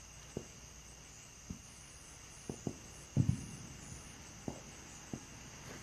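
Crickets chirring steadily in the night, with scattered sharp crackles and clicks from the burning, lighter-fluid-soaked firecracker bricks that have not yet started popping; one louder crack with a short low thud comes about three seconds in.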